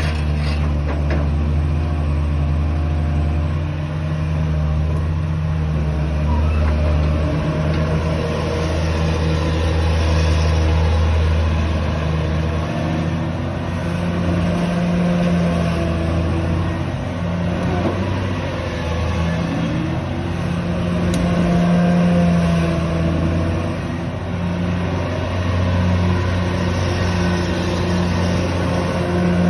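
Caterpillar 330D2 crawler excavator's diesel engine running, a loud low drone that rises and falls in pitch now and then as the engine speed or load changes.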